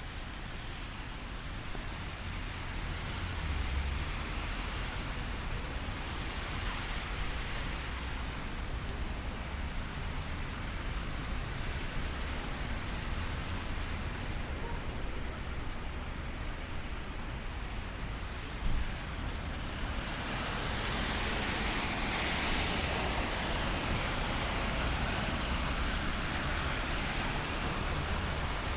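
Street traffic on a wet road, with a steady low rumble and tyre hiss from passing vehicles. One pass swells louder and lasts several seconds about two-thirds of the way through, and there is a single short knock just before it.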